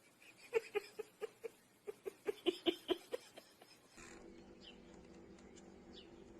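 An animal giving a rapid run of short, pitched calls, about four a second, for roughly two and a half seconds. Near the middle it gives way to a steady low hum.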